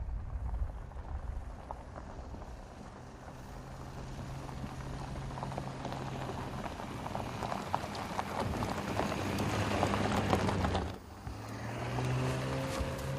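Audi SQ5 driving off-road: a steady engine note under tyre noise and a crackle of gravel and stones under the wheels, growing louder. It drops away suddenly about eleven seconds in. The engine note then comes back near the end, with its pitch falling.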